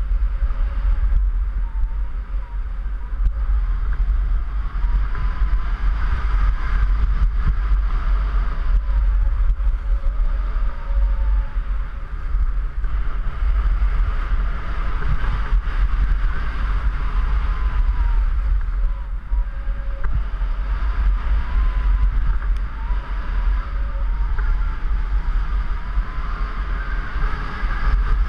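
Wind rushing over the microphone of a camera skiing downhill, a steady low rumble, with the hiss of skis sliding on snow.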